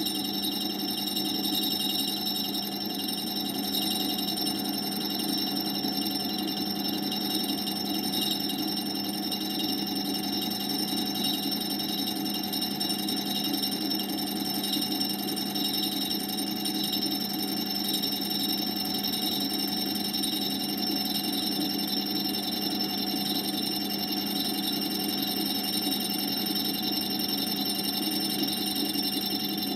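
Homemade tool-and-cutter grinder running steadily with its cup grinding wheel spinning, a constant whine made of several steady tones over a low hiss.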